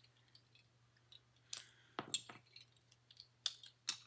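Faint, scattered sharp clicks and clinks of a cheap plastic Rubik's cube being handled while it is taken apart, about half a dozen over a few seconds.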